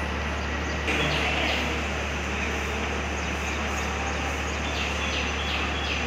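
Chalk scratching and tapping on a blackboard in short repeated strokes as a diagram is drawn, over a steady background rumble.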